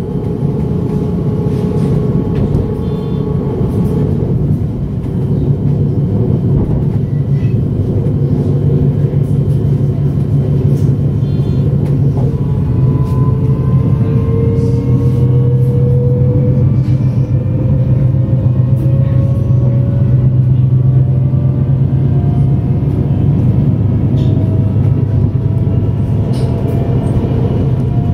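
Siemens Mireo class 463 electric multiple unit accelerating: the whine of its electric traction drive rises slowly and steadily in pitch over a steady low rumble from the running train, getting louder over the first few seconds.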